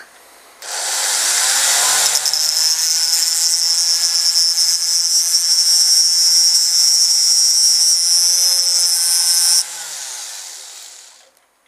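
Flexible-shaft rotary tool with a small cut-off disc spinning up and grinding through thin steel wire, a loud high-pitched whine. Near the end the cutting stops abruptly and the motor winds down.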